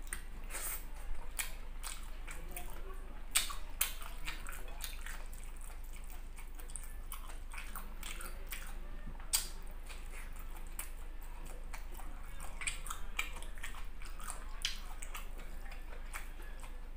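Close-miked chewing of a mouthful of rice and squid eaten by hand: irregular wet mouth clicks and smacks.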